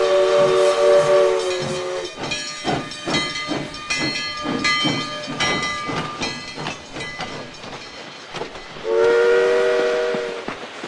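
Steam train sound effect: a multi-note steam whistle blowing, then the engine chugging with rapid repeated strokes and clanking, then the whistle blowing again near the end.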